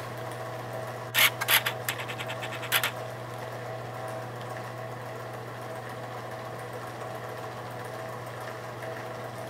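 Smith Corona 5TE electric typewriter's motor humming steadily, with a quick run of sharp clacks and fast small clicks from the typing mechanism about a second in, lasting under two seconds.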